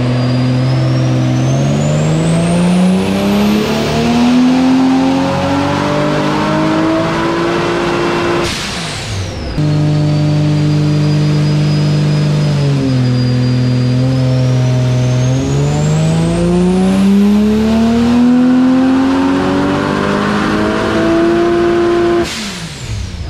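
Turbocharged 2JZ straight-six of a Toyota Supra JZA80 on a chassis dyno making two full-throttle pulls. On each pull the engine note climbs steadily while a high turbo whine rises above it, and each pull ends in a sudden lift-off. Between the two pulls the engine holds at a steady speed. This is the baseline run through a full 4-inch exhaust with catalytic converter and recirculated wastegate.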